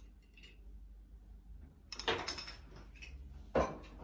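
Ground black pepper being shaken from its container onto the mücver mixture, a short grainy rustle about two seconds in, followed near the end by a sharp knock of something set down or handled.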